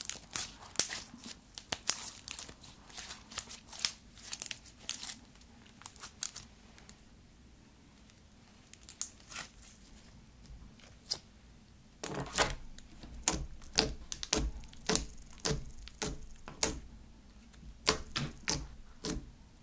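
Sticky slime squeezed and kneaded in the hands, crackling with many sharp clicking pops; it goes quiet for several seconds in the middle, then more clicking pops follow.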